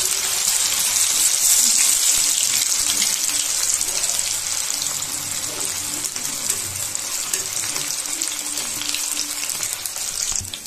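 Marinated paneer pieces deep-frying in hot oil, a steady dense sizzle that gradually eases and drops off near the end.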